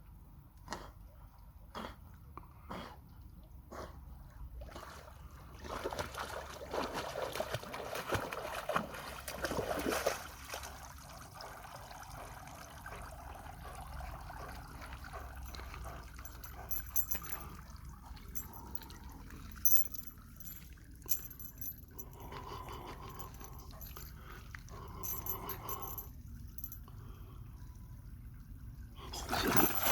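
Lake water splashing and trickling around a swimming dog: short sharp ticks over the first few seconds, then louder splashing from about six seconds in, then quieter lapping with scattered knocks.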